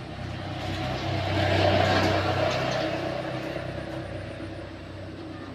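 A motor vehicle passing by: its engine and road noise grow louder, peak about two seconds in, then fade away.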